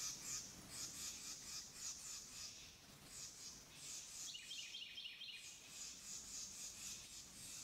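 Faint forest ambience: a steady run of high chirps repeating about three times a second, with a quick series of about six bird notes a little past the middle.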